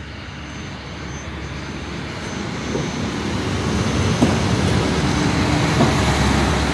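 SU42 diesel locomotive coming into the station, its engine and wheels rumbling and growing steadily louder as it approaches, with a single knock about four seconds in.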